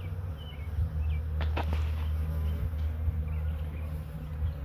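Honeybees from a newly installed package buzzing steadily around the hive entrance as they fly in and out.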